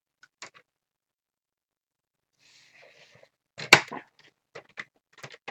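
Paper and crafting tools being handled: a soft paper rustle about halfway through, then a sharp click and a string of light taps and clicks.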